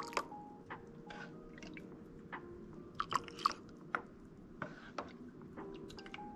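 Hot chocolate being ladled from a pot into a mug: scattered light knocks of the ladle against the pot and short splashes and drips of liquid.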